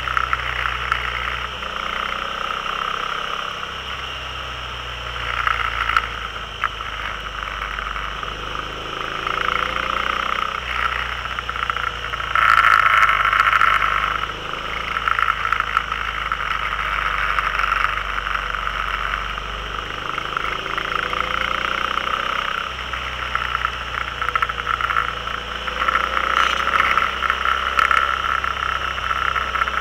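Can-Am Spyder's V-twin engine running under way, its pitch rising and falling with the throttle through the curves, under a steady rush of wind and road noise. The noise swells briefly about halfway through.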